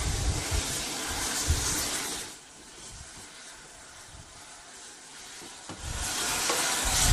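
Helicopter cabin noise: a steady rush of hiss and low rumble. It drops away sharply a little over two seconds in and returns about six seconds in.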